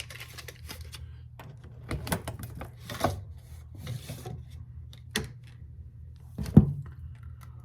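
Several separate knocks and clunks of metal flat bar and tools being handled on a work surface, the loudest about six and a half seconds in, over a steady low hum.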